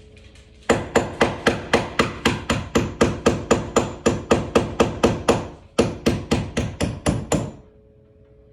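Hammer blows in a quick, even series, about four or five a second. They pause briefly after about five and a half seconds, then a second run of blows stops shortly before the end.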